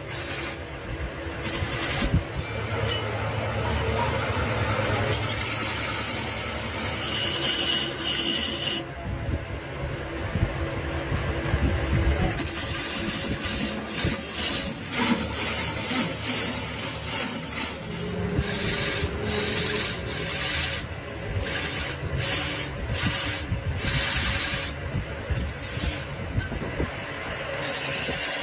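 Wood being rubbed and rasped with hand tools, the sound changing abruptly several times.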